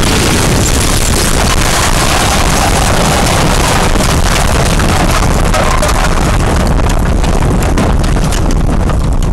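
Loud, steady roaring rush of noise, with no clear tone or beat.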